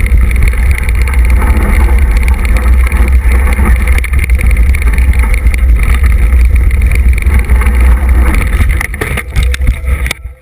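Fast ride down a rough dirt forest trail heard from a handlebar camera: loud, steady low rumble of wind buffeting and trail rattle. Near the end come a few clattering knocks, then the noise cuts off suddenly as the camera ends up on its side.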